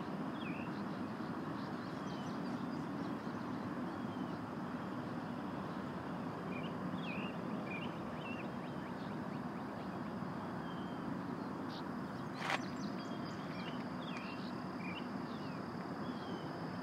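Birds chirping in short, scattered calls over a steady outdoor background hiss with a faint high steady tone, and a single sharp click about twelve seconds in.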